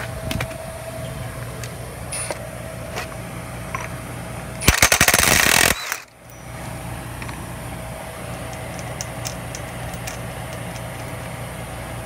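Impact wrench hammering in a rapid rattling burst for about a second, near the middle, as it breaks loose the 32 mm front axle bolt of a Yamaha YZF-R1. A few light clicks of tool and socket come before and after it.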